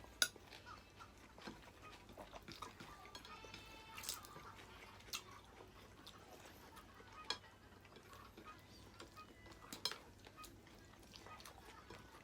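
Faint, scattered clinks and taps of cutlery on plates and bowls during a meal, with one sharper click right at the start.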